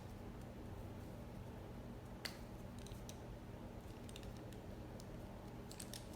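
Faint scattered clicks and taps of a leather leash and its metal hardware being worked by hand, over a low steady hum; the sharpest click comes about two seconds in, with a few more near the end.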